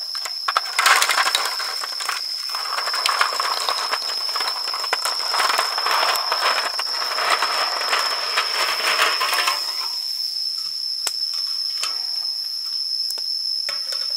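Raw quail eggs clicking and clattering against one another and the metal bowl as a hand stirs through them. The rattle thins to a few scattered clicks about two-thirds of the way through.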